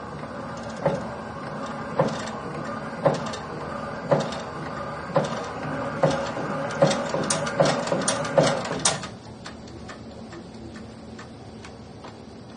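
Small electric motor of a homemade earthquake model's shake table running with a steady hum and sharp rhythmic knocks about once a second, coming faster toward the end; the motor cuts off suddenly about nine seconds in, leaving only faint ticks.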